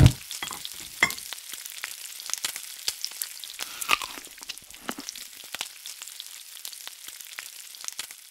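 A closing music hit at the very start, then food sizzling in a frying pan: a steady crackling hiss full of small pops that slowly fades away near the end.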